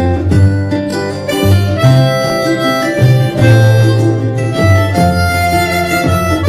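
Backing-track music: acoustic guitar and bass with a harmonica line over them, playing a slow song intro.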